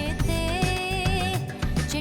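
Background music: an Indian film-style song with a held, bending melody over a steady beat.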